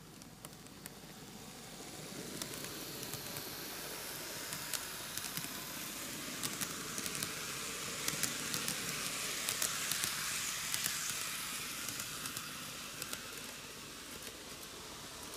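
An N-gauge model train, a six-car Microace Meitetsu KiHa 8000 series set, running past on TOMIX track: a whirring, hissing running noise with frequent small clicks of the wheels over the rail joints. It swells as the cars come close, is loudest around eight to eleven seconds in, and fades as the last car goes by.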